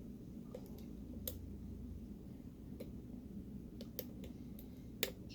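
Faint, scattered light metal clicks of a lock pick and tension wrench working the pins inside a Master Lock 141 pin-tumbler padlock, about ten irregular ticks.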